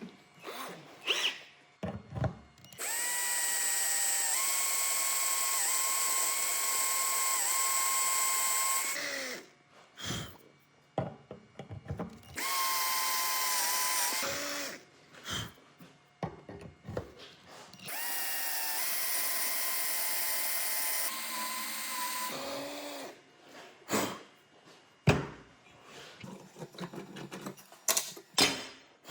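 Electric drill motor running in three bursts of several seconds each, its steady whine sagging slightly in pitch now and then as it takes load. Short clicks and knocks of handling come between the bursts.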